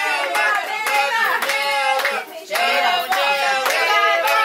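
A group of people singing together and clapping in time, about three claps a second, with a short break about two seconds in.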